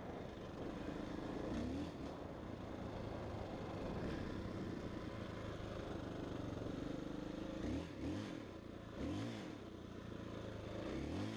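KTM 640 LC4 single-cylinder four-stroke dirt bike engine running steadily under way, then revved up and back down three times in quick succession over the last few seconds.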